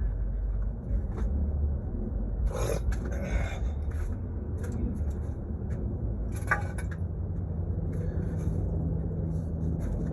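Scattered scrapes and clicks of hands and tools working at a stuck engine-bay electrical connector, over a steady low rumble.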